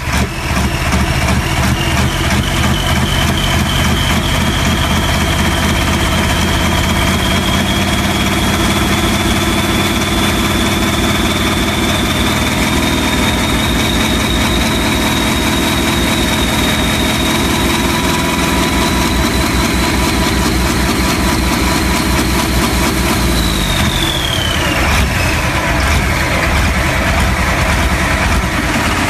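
Race-built 7.3L Powerstroke V8 turbodiesel with a mechanical P-pump, running steadily on an engine stand through an open exhaust pipe. A high whine sits over it, climbing slowly in pitch, then dropping away about 23 seconds in.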